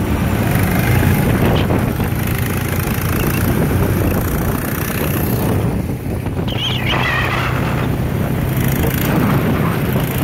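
Go-kart's small engine running steadily at speed, with wind noise rushing over the microphone.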